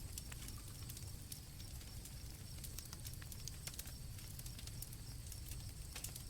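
A campfire crackling with irregular sharp pops over a low steady rumble, while crickets chirp steadily in the background.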